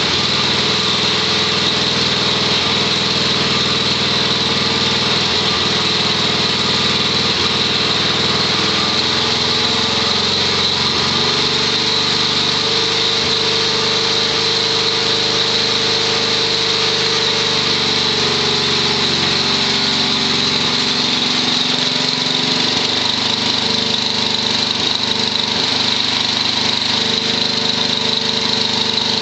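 6 HP Tecumseh H-60 single-cylinder engine of a Wheel Horse garden tractor running steadily as it drives a snowthrower. Its pitch shifts slightly around the middle.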